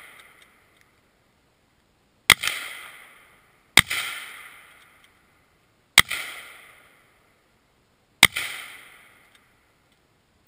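Single gunshots from a firearm, four of them about one and a half to two seconds apart, with a fifth at the very end. Each crack fades away over about a second.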